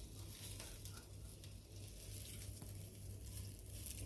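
Meat rolls sizzling over a portable butane cassette stove, a steady crackle with many small, scattered pops of fat, over a steady low hum.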